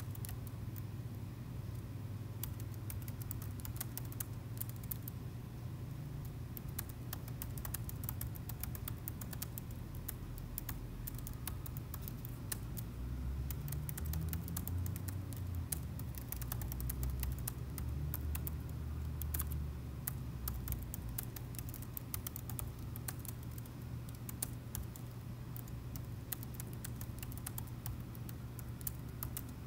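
Typing on a laptop keyboard: a steady, irregular patter of key clicks over a steady low hum.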